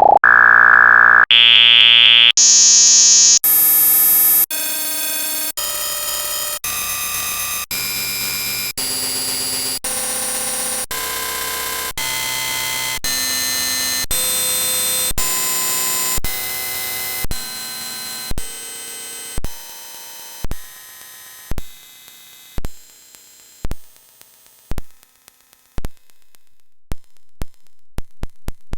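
A pop sound effect repeated and stacked an absurd number of times, in steps about a second long. The first few steps jump up in pitch; after that it turns into a harsh, buzzing, digital noise. Toward the end the steps get quieter and shorter and break up into sparse clicks.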